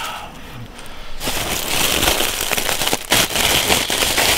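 Aluminium foil crinkling and tearing as hands pull open the charred foil wrapping of an ember-baked lamb leg, a dense crackle starting about a second in.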